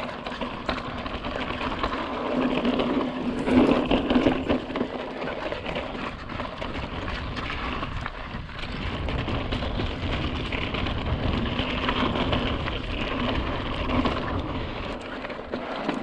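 Mountain bike riding over bare slickrock: steady tyre noise with a faint hum, and frequent knocks and rattles from the bike over the bumps.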